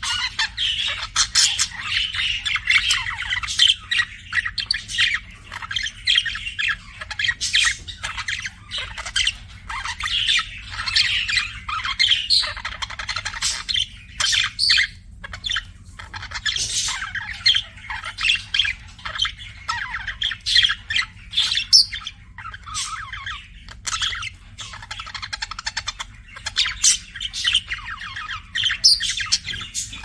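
A pair of budgerigars chattering and warbling: a fast, unbroken run of short chirps, squeaks and clicks with a couple of brief pauses. This is the courtship chatter of budgies flirting.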